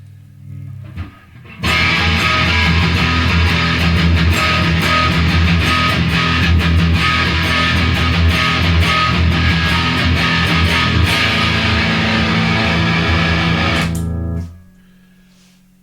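Epiphone 1959 Les Paul Standard electric guitar played through an EVH 5150 Overdrive pedal into a Marshall DSL40 amp. A low note sounds quietly at first; about a second and a half in, a loud stretch of distorted, heavily picked rhythm playing starts. Near the end it stops and falls away quickly, cut short by the pedal's built-in noise gate.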